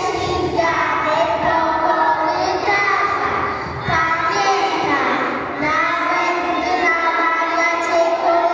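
Young children singing a song together, one girl singing into a microphone.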